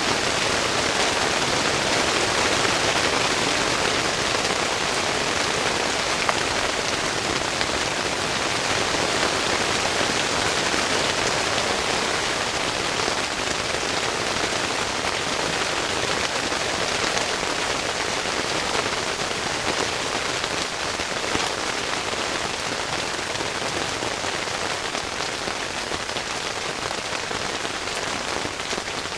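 Heavy rain falling steadily on a yurt tent, a continuous patter of drops on the fabric.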